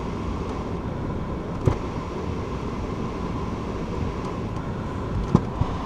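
Ford Fiesta's heater blower fan running steadily, an even rush of air with a faint hum, and two short clicks partway through. The blower is working after the dashboard change.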